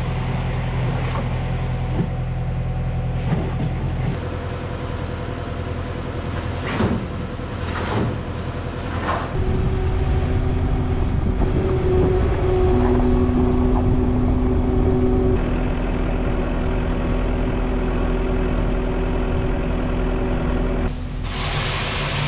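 Kubota skid steer loader's diesel engine running through a series of short cuts, with a steady whine from about ten seconds in. A few knocks come around seven to nine seconds.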